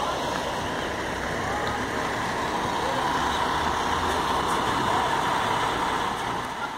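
Engines of a concrete mixer truck and a concrete pump truck running steadily, waiting to pump concrete.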